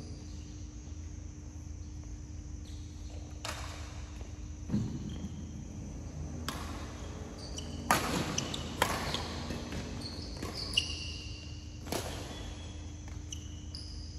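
A badminton rally: sharp racket strikes on the shuttlecock every second or two, with short high squeaks of court shoes on the floor, over a steady low hum.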